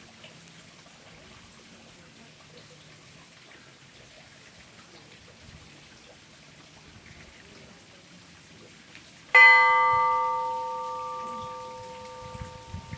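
An Orthodox church bell struck once, about nine seconds in, then left to ring and slowly die away. This is the first stroke of a blagovest, the measured tolling that announces the start of a service.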